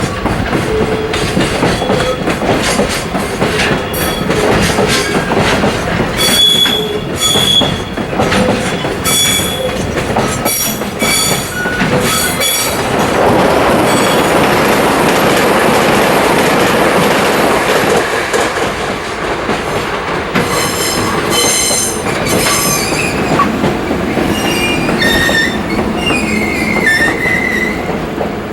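Koki container freight wagons rolling through the station pointwork during shunting. The wheels squeal in short, irregular high screeches over a rumbling clatter. In the middle the squeals give way to a steadier, louder rush of rolling train noise, and near the end a squeal slides down in pitch.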